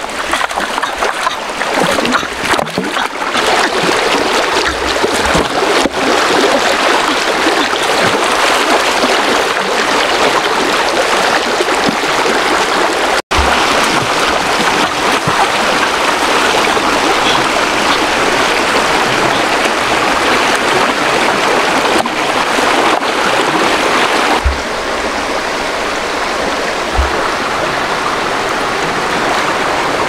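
Shallow rocky stream running steadily, with splashing as hands and a bamboo basket are worked through the water. The sound breaks for an instant about halfway through and is slightly quieter near the end.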